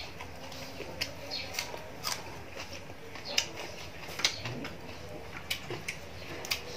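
A person chewing food close to the microphone, with irregular sharp wet clicks and crunches about every half second to a second.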